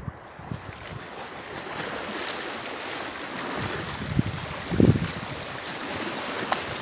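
Small sea waves washing over and around shoreline rocks, a steady surf hiss that swells about a second and a half in. A short low thump about five seconds in.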